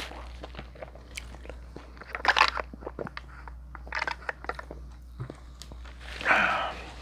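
Close-up eating sounds: biting into and chewing a piece of grilled green bell pepper from a steak kebab, with crunches and wet mouth clicks. The loudest crunches come about two and a half and four seconds in.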